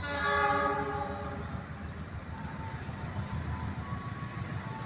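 A station chime melody ends on a ringing chord that fades away over about a second and a half. A steady low rumble continues underneath.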